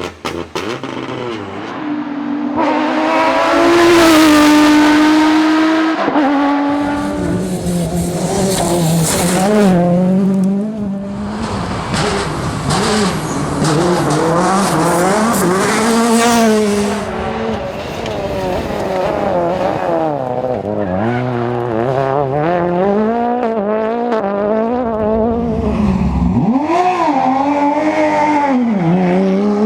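Rally cars at full throttle on a stage, one after another, engines revving up and dropping back through gear changes as they pass.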